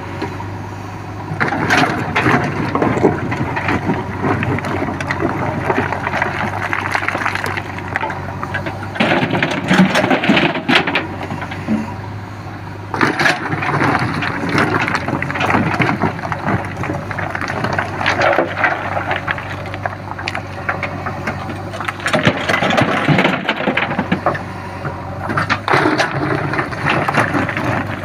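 JCB 3DX backhoe loader's diesel engine running steadily, with crunching, scraping and rattling from the bucket working earth or rubble. The crunching comes in long stretches separated by a few brief lulls.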